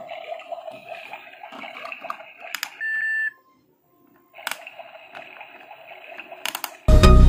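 Toy kitchen stove's electronic sound effects through its small speaker: a hissing, sizzling cooking sound, a short high beep about three seconds in, then a second of silence. The stove knob clicks and the sizzle starts again. Loud electronic music comes in near the end.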